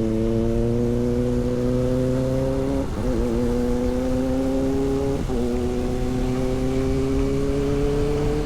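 Motorcycle engine pulling steadily on the road, its pitch climbing slowly with brief dips about three and five seconds in as gears change, over a low rumble of wind and road noise.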